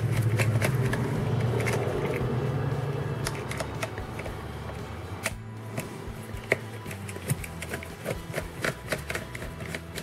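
Screwdriver work on a laptop's hinge screws: a string of light, irregular clicks and ticks of small metal parts, over a low steady hum that fades out about three or four seconds in.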